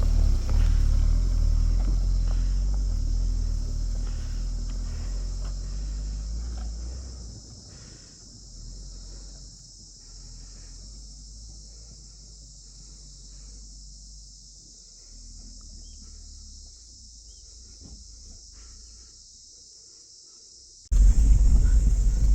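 Suzuki Jimny's engine and drivetrain rumble fading away over the first several seconds, leaving a steady high-pitched chirring of insects. About a second before the end, loud low vehicle rumble cuts back in suddenly.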